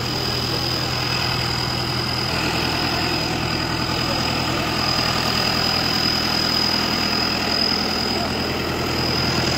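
Modified New Holland 5630 tractor's four-cylinder diesel engine idling steadily, with a constant high-pitched whine over it.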